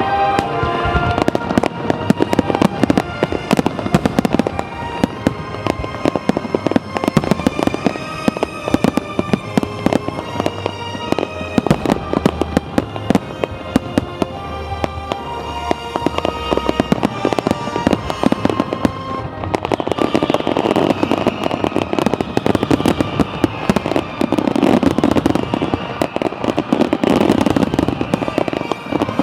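Fireworks finale: a dense, rapid barrage of aerial shell bursts, bang after bang with no pause, over music playing throughout.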